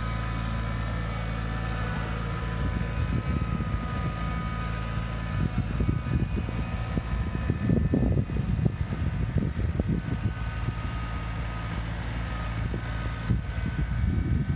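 New Holland compact tractor's diesel engine running steadily as the tractor drives across the field. From a few seconds in, an uneven low rumbling rises and falls over the engine note.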